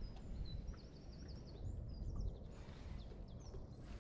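A small songbird singing: runs of quick, high chirping notes, over a steady low rumble of outdoor noise.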